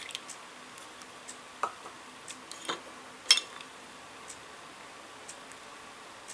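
Clock ticking about once a second, with a few light clicks and clinks as miniature kitchen utensils, a tiny pitcher and a small metal measuring cup, touch the glass mixing bowl; the sharpest clink comes a little past the middle.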